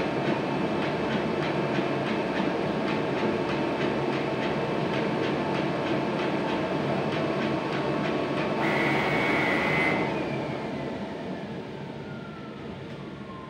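A heavy vehicle rumbling past with a rapid, regular clatter. It fades away over the last few seconds with a falling whine.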